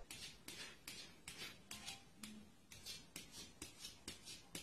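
Faint light taps or clicks at uneven spacing, about two to three a second.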